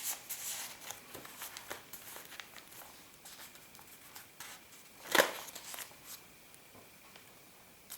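Paper rustling and crinkling as the pages, pockets and tags of a handmade paper journal are handled, with one sharper paper crackle about five seconds in.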